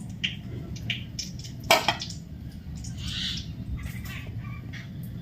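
Birds chirping and calling over a steady low rumble, with one louder double call about two seconds in.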